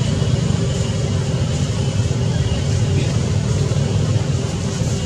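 Steady, loud low-pitched background noise with no distinct events.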